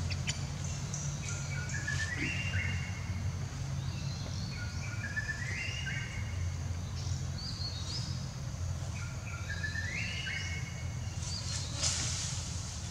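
Songbird singing: a short phrase of stepped notes rising in pitch, repeated three times, with higher short calls between, over a steady low rumble.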